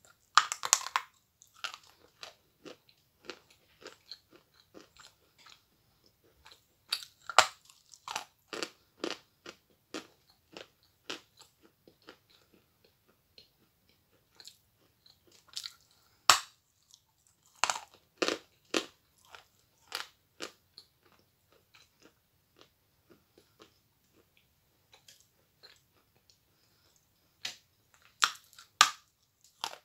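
Biting off and chewing a very hard chunk of natural chalk: sharp crunches in clusters, with pauses of a few seconds between them.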